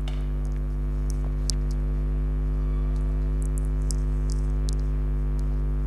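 Steady low electrical mains hum with a few faint, scattered high ticks and clicks.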